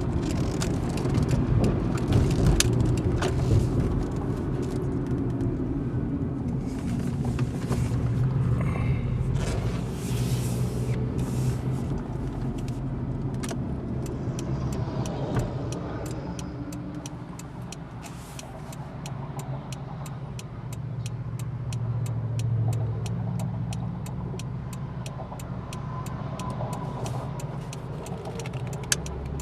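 2005 Honda Accord's 2.4-litre K24 four-cylinder engine, breathing through an aftermarket K&N cold-air intake with the intake resonator removed, heard from inside the cabin while driving at low speed. It is louder for the first dozen seconds, eases off, then swells again a little past the middle. A regular ticking runs through the second half.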